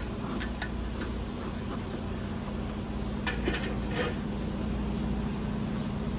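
A steady low hum runs throughout, with scattered light clicks and knocks from handling gear, a small cluster of them about three to four seconds in.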